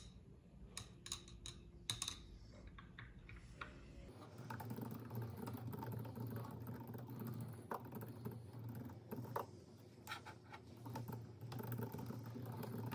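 A few light clinks of a metal straw against a glass as a drink is stirred. About four seconds in, these give way to quick, continuous typing on a compact wireless keyboard with round keys.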